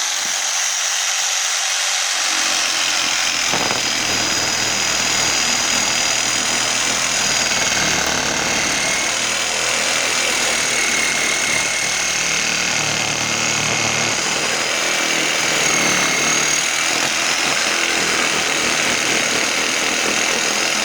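Electric power tool running steadily with a high whine as it cuts open the plastic housing of a used water filter.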